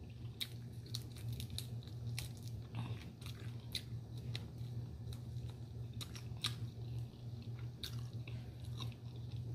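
A person chewing food close to the microphone, with irregular mouth clicks and smacks, over a steady low hum.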